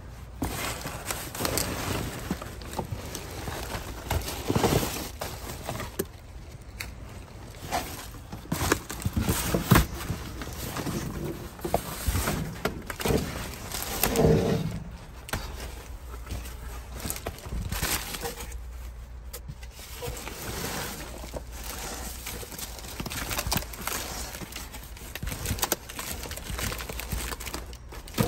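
Plastic bags and cardboard boxes being rummaged through by a gloved hand in a dumpster: irregular crinkling and rustling with sharp knocks.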